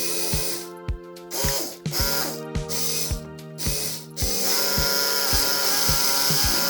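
Background electronic music with a steady kick-drum beat under sustained chords; it sounds muffled for about the first four seconds, then the full sound comes back.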